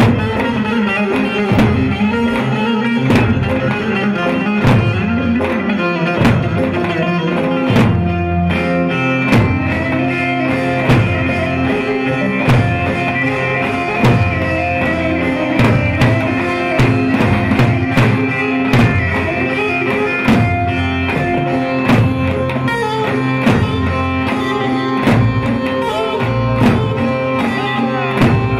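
Turkish folk dance tune played on an amplified electric bağlama (saz), with a steady drum beat from a davul.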